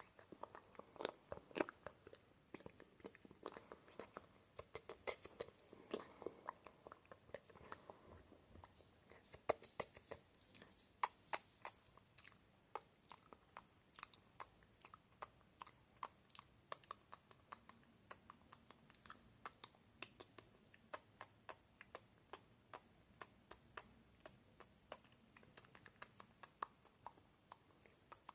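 ASMR mouth sounds right at the microphone: a steady stream of small, sharp tongue clicks and lip smacks, thickest about a third of the way in.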